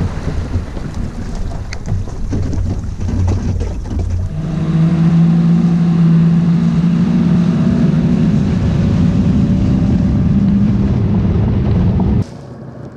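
Boat motor running. It picks up speed and gets louder about four seconds in, holds a steady pitch, then cuts off suddenly near the end.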